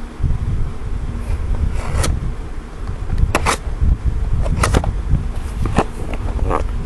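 A cardboard package being opened: about seven short scraping strokes on the box and its packing tape, over a steady low rumble from the camera being handled close to the box.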